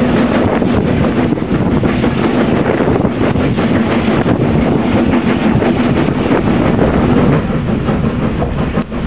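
Steam locomotive working hard under way, a loud continuous rush of locomotive running noise with the wheels clattering over the rails.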